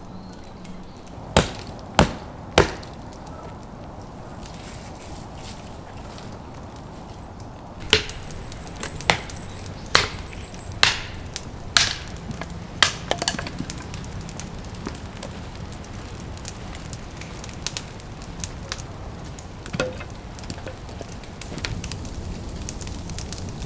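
Firewood being chopped: three sharp strikes in quick succession about a second and a half in, then a run of about six strikes roughly a second apart, followed by lighter knocks and small cracks.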